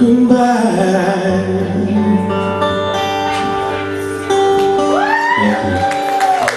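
Music: a song with guitar and a sung voice, holding long notes.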